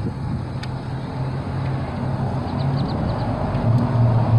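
A steady, low, engine-like drone from a motor vehicle running nearby, rising a little near the end. A few faint, quick clicks come partway through.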